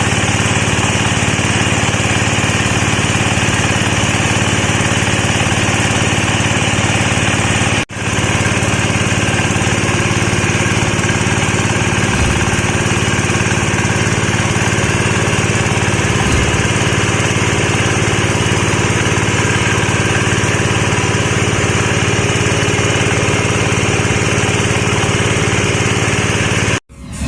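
Disk mill for pulverising coconut shell running, a loud steady mechanical drone that breaks for an instant about eight seconds in and cuts off suddenly near the end.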